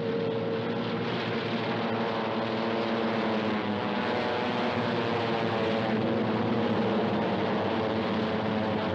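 Engines of several propeller fighter planes flying low overhead in formation: a loud, steady, droning engine noise.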